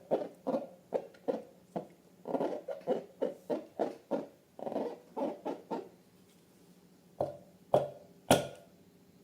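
Slime being squeezed and worked by hand: a run of squishy squelches, about two or three a second, that stops about six seconds in. Two sharp snaps follow near the end, the second the loudest sound here.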